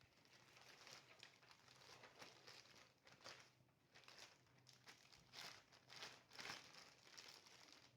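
Faint crinkling and rustling from something being handled, in a string of short scrapes that grow busier past the middle, over a faint steady low hum.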